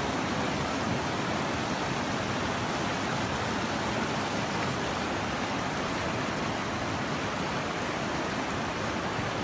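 Floodwater rushing in a flash flood: a steady, even rushing noise that does not change.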